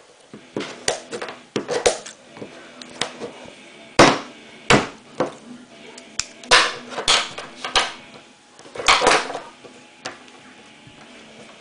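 A pointed metal blade jabbing through soft modelling clay and knocking on a wooden tabletop: a string of irregular sharp knocks, some in quick pairs.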